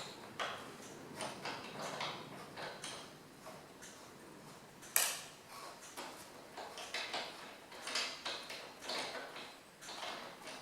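Scattered knocks and clicks of a long piece of wood being handled and positioned on a sliding mitre saw, with one sharper knock about five seconds in. The saw's motor is not running.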